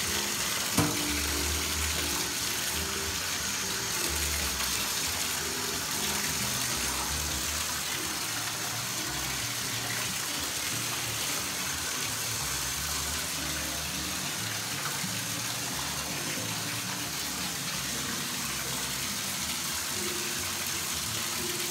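Bathtub faucet running steadily, its stream pouring through a trombone slide held under it and splashing into the tub.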